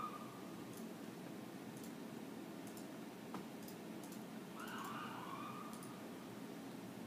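A hamster gnawing its food inside a glass, heard as faint, scattered little clicks over a steady low room hum, with one sharper click about halfway through. A faint wavering tone, like a distant siren, comes in about two-thirds of the way through.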